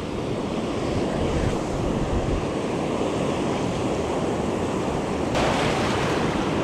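Shallow surf washing and foaming around a wader, with wind rumbling on the microphone; a wave rushes in louder and hissier about five and a half seconds in.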